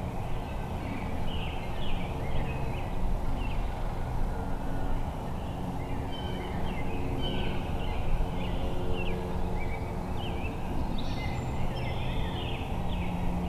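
Woodland ambience in spring: many small birds chirping in quick, short calls over a steady low rumble, with wild turkeys calling among them.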